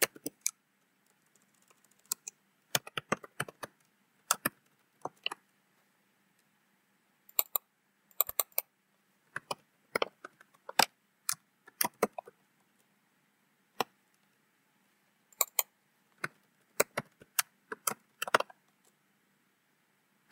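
Computer keyboard typing: sharp key clicks in short, irregular bursts separated by pauses.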